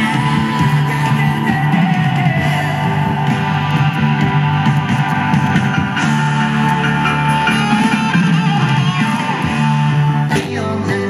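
Guitar rock music played through a pair of generic 3-inch mini bookshelf speakers driven by a vintage stereo receiver, heard in the room. The music breaks briefly and changes just after ten seconds in.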